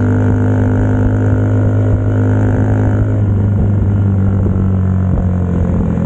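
Suzuki Birdie 50 moped's 50cc engine running at a steady speed through an aftermarket slip-on muffler, a low even drone. Its tone changes slightly about three seconds in.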